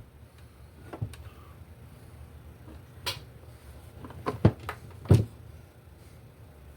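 A handful of short, sharp clicks and knocks, about six, bunched near the middle and end, from multimeter test leads and the fluorescent work light's wiring being handled while voltage is checked at the switch.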